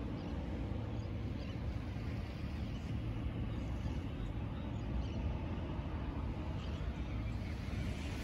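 Wind buffeting the phone's microphone in a steady low rumble, over a faint even hiss of open-air beach ambience.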